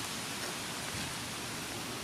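Steady, even hiss of outdoor ambient noise.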